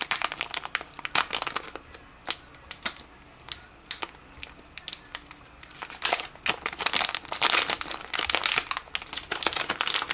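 Crinkling of a metallized anti-static plastic bag being handled and opened by hand. The crackles come irregularly, sparse at first and much busier from about six seconds in.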